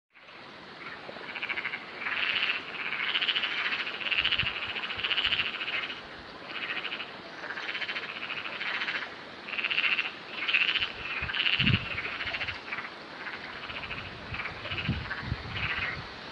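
A chorus of frogs calling, many overlapping calls each made of rapid rattling pulses, repeating one after another.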